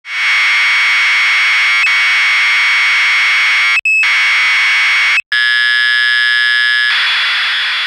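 Clock radio alarm going off: a loud, harsh buzz that breaks off briefly twice, then changes to a different, evenly pitched buzz about five seconds in and gives way to a hiss that begins to fade near the end.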